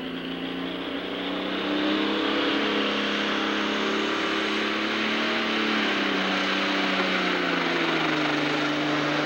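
Pro Stock pulling tractor's turbocharged diesel engine running hard under load as it pulls the sled. Its pitch climbs over the first couple of seconds, holds steady, then sags a little about two-thirds of the way through.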